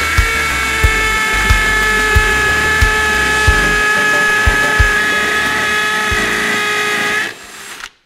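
Bosch GSB 18V-85C cordless brushless hammer drill boring into brick, a steady high-pitched whine that cuts off about seven seconds in. A low, regular music beat, about one and a half a second, runs under it.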